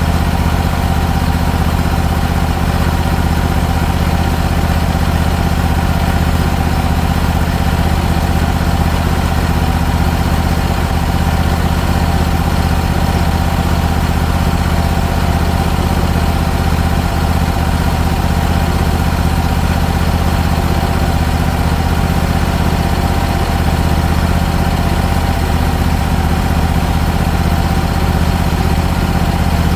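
A motor vehicle's engine running steadily at a constant, even speed throughout.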